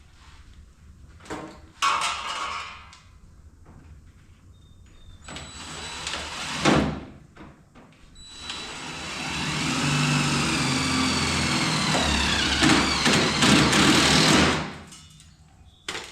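Power drill drilling out spot welds in a pickup's steel bedside. It runs in three spells, the last and longest one loud, its whine dropping in pitch as the bit bites into the sheet metal.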